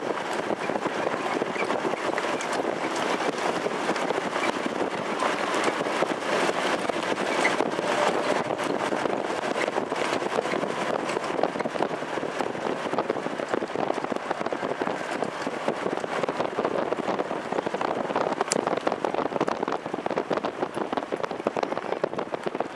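Steady rush of wind on the microphone of a camera moving alongside a harness race, mixed with a dense patter of trotting horses' hooves and sulky wheels on the dirt track.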